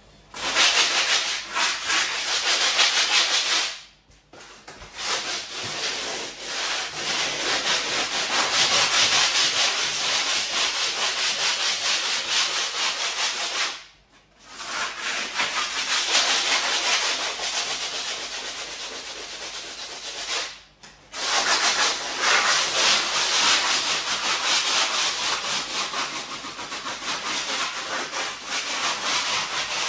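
Coarse 40-grit abrasive rubbed by hand in quick back-and-forth strokes over a koi pond's cured flocoat top coat, keying the surface for another coat. The scratching stops briefly three times.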